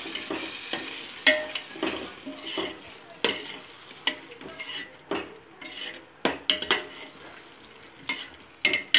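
Steel spoon stirring curd into a cooking onion-tomato masala in a stainless steel pot, clinking and scraping against the pot's sides every second or so over a faint sizzle.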